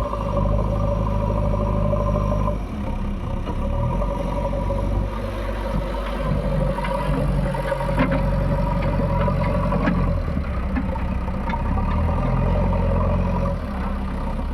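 Heavy diesel machinery engine running, its note shifting with changing load about three seconds in and again later, with a few sharp knocks and clanks between about six and ten seconds in.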